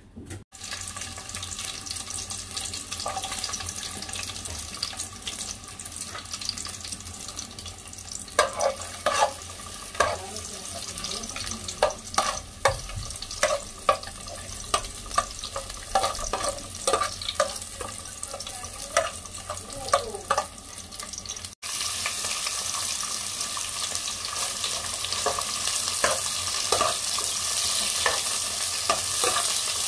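Garlic and sliced onions sizzling in hot oil in an aluminium pot, stirred with a metal ladle that scrapes and knocks against the pot in many short strokes. The sizzling is louder over the last third.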